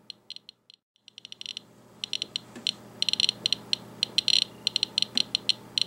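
Radiation Alert Inspector Geiger counter clicking rapidly at random intervals, short high clicks thinning out briefly about a second in. The click rate is over 500 counts per minute from a rain-out wipe sample, far above background: the sample is radioactive.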